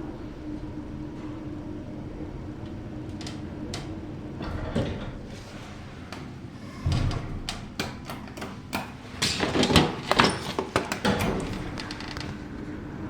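Lift doors and gate being worked: a low steady hum with scattered clicks, a thump about seven seconds in, then a burst of clanking and rattling from about nine to eleven seconds in.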